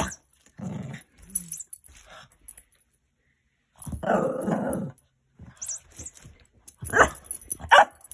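Small dog growling in play, with a longer growl of about a second in the middle, then two short, sharp barks near the end.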